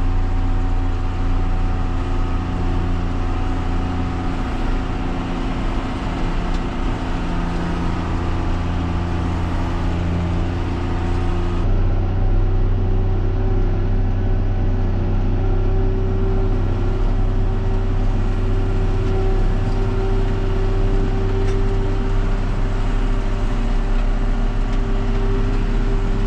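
Farm tractor's diesel engine running steadily during hay baling; about twelve seconds in the sound cuts abruptly to another steady engine drone.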